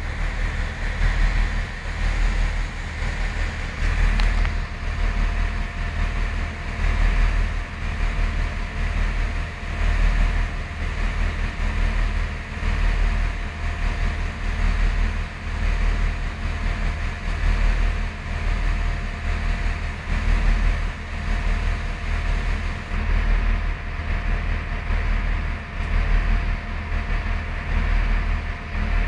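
Train running, heard from inside the passenger carriage: a steady low rumble that swells and eases every second or two, with a faint steady hum coming in about four seconds in.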